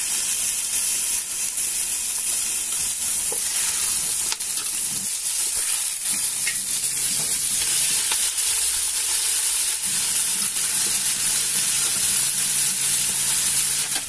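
Raw chicken pieces frying in hot oil with browned onions and garlic, a loud continuous sizzle, with a few knocks as the pieces are moved about in the pot.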